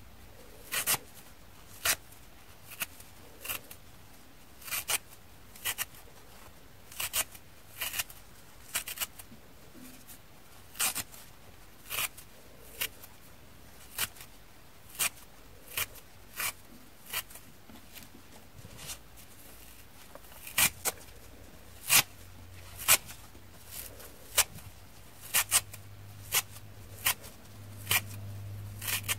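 Thin abrasive scouring pads being torn apart by hand into small bits: a series of short, sharp rips of the fibrous pad, roughly one a second, the loudest ones a little past the middle.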